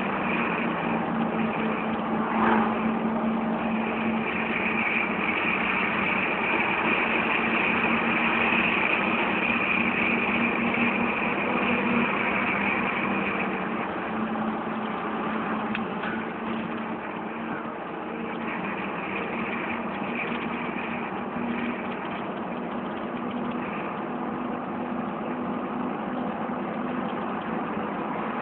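A vehicle's engine running steadily as it drives along, with a high-pitched whine that fades about halfway through.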